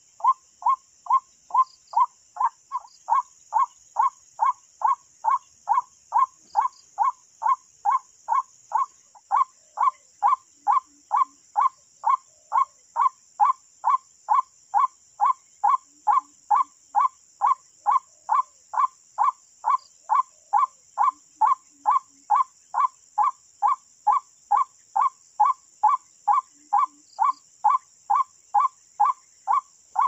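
White-breasted waterhen call lure: a recorded 'kruak' call played on a loop from a bird caller, repeating about twice a second with machine-steady timing and even loudness.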